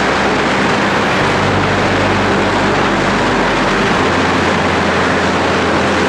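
Steady, loud industrial noise from an electric arc furnace and its melt shop, a dense crackling hiss over a low electrical hum. The hum steps to a new pitch about a second in and again about four seconds in.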